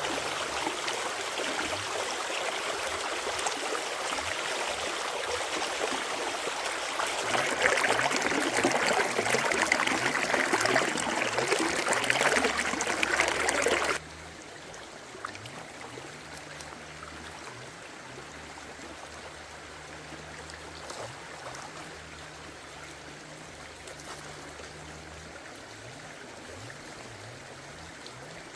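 Stream water running steadily. The flow is loud and grows a little louder partway through the first half, then drops suddenly to a softer, quieter flow about halfway through.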